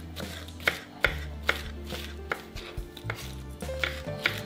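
Kitchen knife chopping pineapple on a wooden cutting board: sharp, uneven knocks of the blade through the fruit onto the board, roughly two a second.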